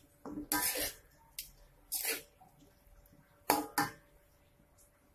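Metal ladle scraping and clanking against a wok while stirring chunks of chicken, tofu and tempeh, in several short bursts.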